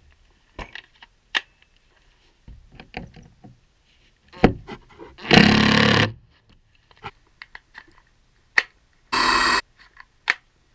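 A cordless drill runs in two short bursts, about five seconds in and again about nine seconds in, as it drives screws up into wood. Sharp knocks and clicks of tools and boards being handled come between the bursts.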